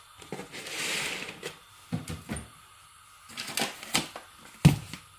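Kitchen clatter while breakfast is being made: a short hiss about a second in, then several sharp knocks and clicks of utensils and containers.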